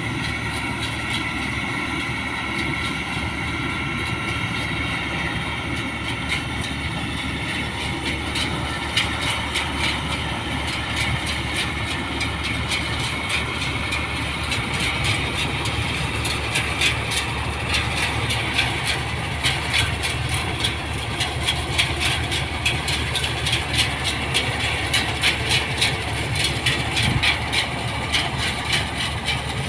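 New Holland 1545 combine harvester running while cutting rice: a steady engine drone, joined from about nine seconds in by a fast mechanical clatter that grows a little louder as the machine comes closer.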